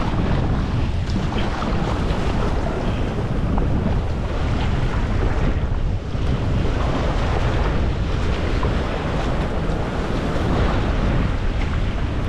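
Strong wind rumbling on the microphone over rough, choppy sea, with waves sloshing and breaking around a kayak and the splash of paddle strokes. A steady, dense noise with no let-up.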